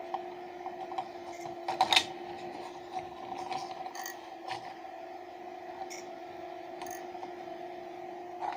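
Two salvaged PC power-supply fans running together as a fume extractor: a steady hum at two pitches over a light hiss of moving air. A few small clicks and taps sound over it, the loudest about two seconds in.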